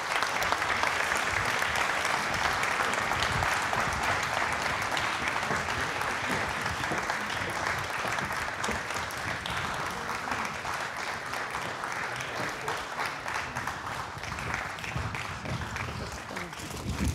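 Audience applauding steadily, slowly dying down toward the end.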